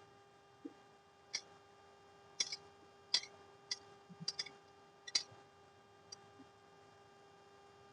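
Irregular sharp clicks or taps, about eight spread over several seconds, with a faint steady hum underneath.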